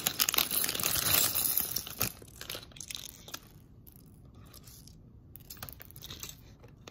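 Clear plastic Lego parts bag crinkling loudly as it is pulled open, for about the first two seconds; then quieter, with scattered light clicks of Lego pieces dropping out of the bag onto the tabletop.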